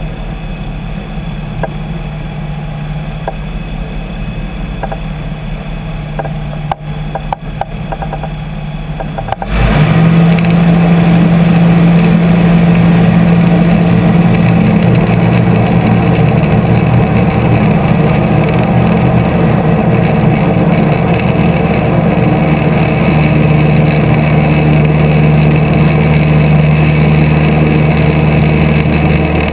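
Light aircraft engine and propeller running at low taxi power, then opened up sharply about nine and a half seconds in for the takeoff run and climb, running steady and loud from then on.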